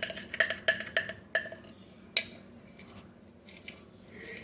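A utensil knocking and clinking against a bowl while glue is worked into it: several sharp taps in the first second and a half, one more about two seconds in, then quieter.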